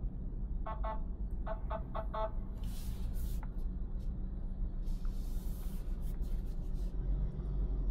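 Steady low rumble of the 2024 MG3 Full Hybrid+ driving. About a second in comes a quick run of five or six short electronic beeps, and two bursts of hiss follow a few seconds apart.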